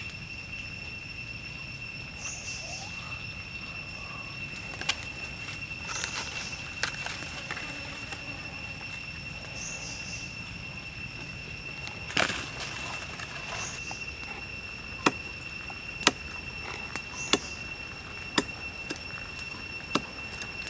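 Cleaver blade chopping raw chicken feet against a tree branch: sharp single chops about once a second in the second half. Under them is a steady high-pitched insect drone, with a short chirp every few seconds.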